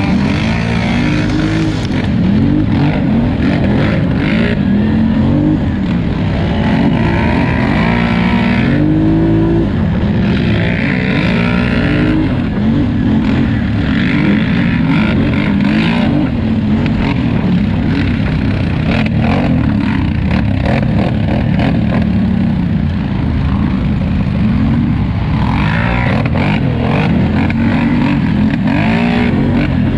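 Polaris Scrambler XP 1000 ATV engine under hard racing throttle, its pitch climbing and dropping back again and again as the throttle is worked, over a constant rush of noise with frequent short knocks.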